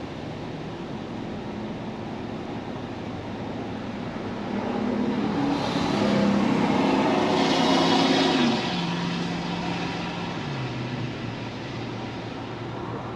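Truck engine and road noise as the truck accelerates. The engine climbs and gets louder for a few seconds, then drops in pitch about eight and a half seconds in and again about two seconds later, as the transmission shifts up.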